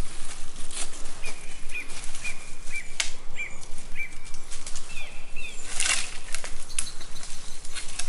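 Dry wood cracking and rustling as a dead branch is pulled down from a tree, with a sharp crack about three seconds in and a cluster of cracks near the end. A small bird repeats a short chirp about twice a second through the first part.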